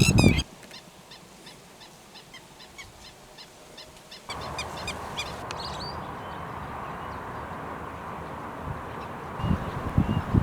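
Birds calling in open country: a run of short, high chirps, a few a second, over a quiet background. About four seconds in, a steady wind-like hiss comes up under a few more calls, and wind buffets the microphone near the end.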